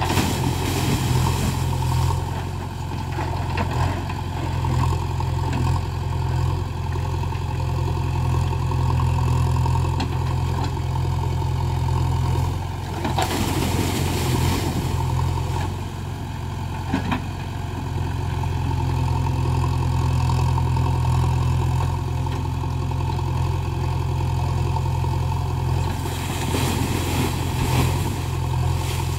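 JCB backhoe loader's diesel engine running steadily while its backhoe bucket tips loads of earth into an old well, with a rush of falling soil at the start, another about halfway through and a third near the end.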